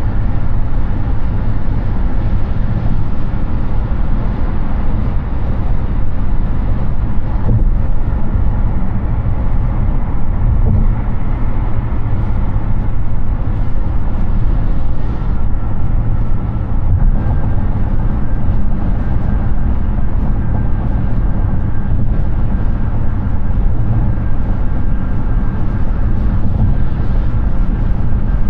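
Steady road noise from a Hyundai Ioniq 6 electric car driving at highway speed: a constant low tyre and wind rush with no engine sound.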